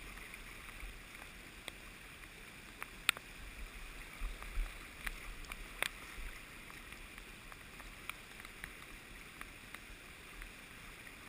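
North Branch Potomac River current running over a rocky riffle: a steady hiss of moving water, with a few sharp ticks, the strongest about three and six seconds in.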